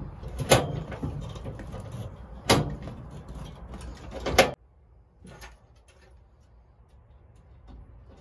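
Hand pop-rivet tool squeezed to set a 3/16-inch pop rivet in aluminum angle. Three sharp snapping clicks come about two seconds apart, the last the loudest, followed later by a faint click.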